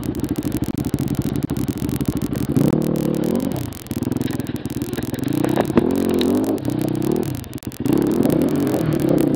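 Enduro dirt bike engine at low speed, its revs rising and falling in repeated throttle blips, with brief drops about four seconds and seven and a half seconds in.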